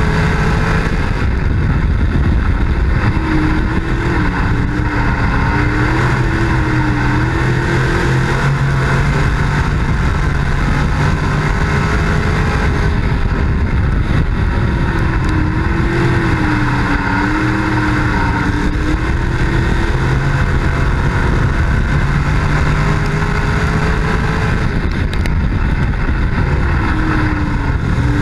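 Dirt-track race car engine heard from an onboard camera, running hard and loud. Its pitch dips and climbs again in a cycle that repeats about every twelve seconds, as the car lifts and gets back on the throttle around the oval.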